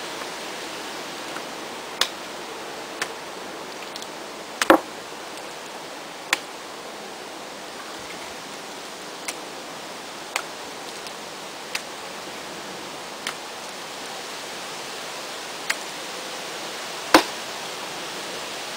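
Lumps of moist high-fire stoneware clay slapped down one onto another by hand: about ten sharp slaps spaced a second or two apart, the loudest near the middle and near the end. Soft recycled clay is being layered with slightly dry bag clay to even out its consistency before wedging. A steady hiss runs underneath.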